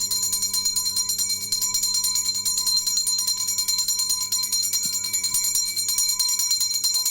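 Background music carried by fast, steady jingling percussion.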